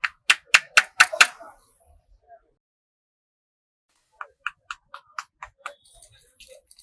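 Hands striking a head in quick rhythmic massage strokes, about four sharp slaps a second: a run of about six in the first second and a half, a pause of nearly two seconds, then another run of about nine.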